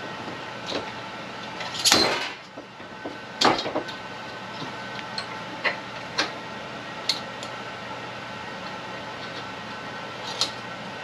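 Slide hammer bearing puller being worked to pull a bearing race from a Woods finish mower spindle housing: two hard metal clanks about two and three and a half seconds in, then a few lighter metallic taps.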